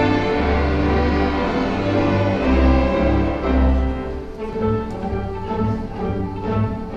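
An elementary school orchestra playing, with full held chords and strong low notes. About four seconds in it drops quieter and the notes become shorter and more separated.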